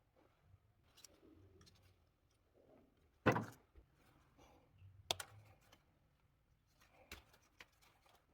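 Scattered clicks and knocks of small hard objects being handled and set down, with a sharp knock about three seconds in as the loudest.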